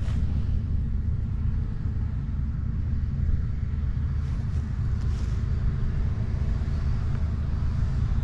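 Diesel engine of heavy farm machinery running steadily under load, heard as a continuous low rumble.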